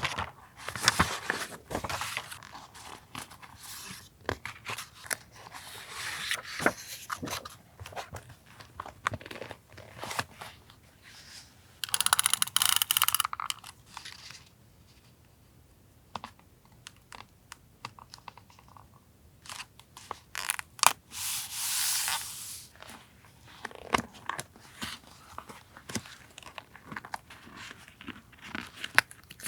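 Paper being handled for journal collage: rustling and crinkling paper with small taps and clicks, and two longer, louder rasping sounds, one a little before halfway and one about two-thirds through.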